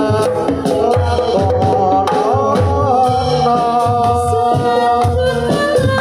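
Javanese kubro siswo folk music, amplified through a sound system: a woman sings a held, wavering melody over regular low drum beats.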